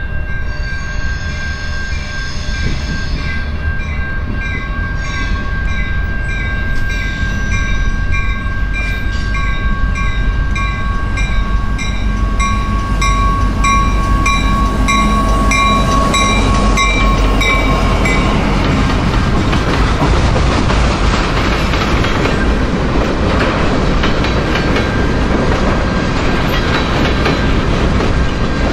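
Freight train passing: diesel locomotive rumble with a bell ringing about twice a second as it comes in, then covered hopper cars rolling by, the wheel and rail noise growing louder after about 18 seconds.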